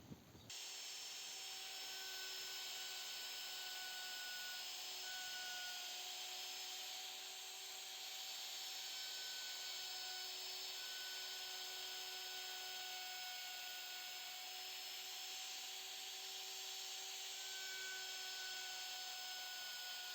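Electric router running steadily in a homemade flattening jig, milling the surface of a wooden log stump. It is a steady high whine over cutting noise, wavering slightly in pitch as it cuts.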